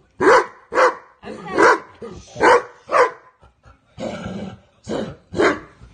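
Dog barking: about seven short single barks, spaced irregularly, with a longer rougher sound between them near the end.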